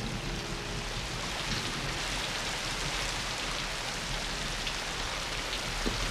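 Steady rain falling on a wet street.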